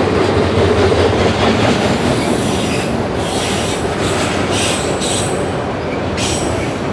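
Railway cars rolling past with a steady loud rumble. From about two seconds in, high-pitched steel wheel squeal comes and goes several times.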